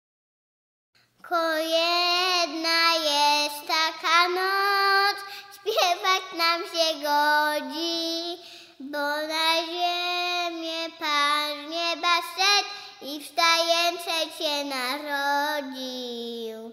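A child singing a verse of a Polish Christmas song solo, starting about a second in.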